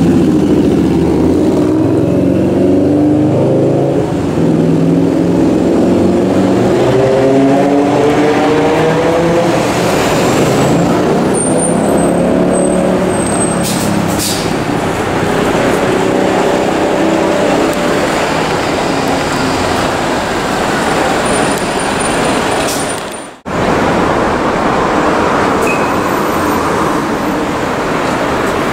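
Loud, steady vehicle noise with a motor whine that climbs in pitch over the first several seconds, broken by a sudden brief dropout about two-thirds of the way through.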